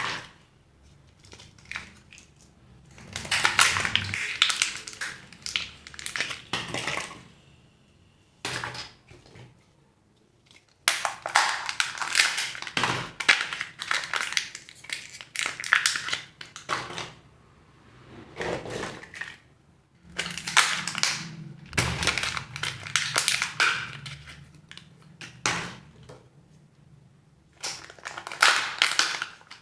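Surprise egg wrappers crinkling and crackling as they are handled and torn open by hand, in four bursts of a few seconds each with short pauses between them.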